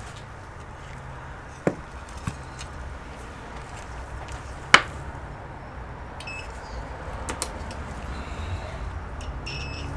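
A few sharp knocks and taps as the cable modem board and multimeter probes are handled on the work mat. The loudest knock comes about five seconds in, over a low steady hum.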